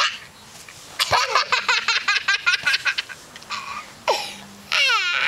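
Toddler laughing: a fast run of giggles about a second in, then high-pitched squealing laughs near the end.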